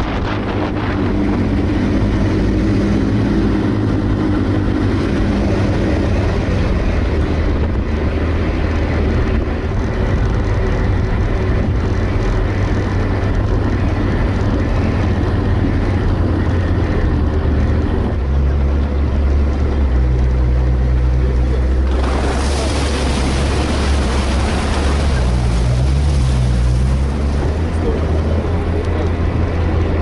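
All-terrain vehicle's engine running while driving, a steady low drone that shifts in pitch a few times. A louder rushing noise joins about two-thirds of the way through.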